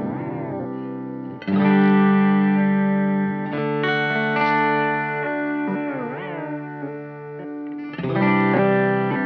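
Electric guitar chords played through an Intensive Care Audio Fideleater pedal, a short delay and vibrato-style modulation effect. New chords are struck about one and a half seconds in and again near the end, and around the middle the held notes wobble and bend in pitch.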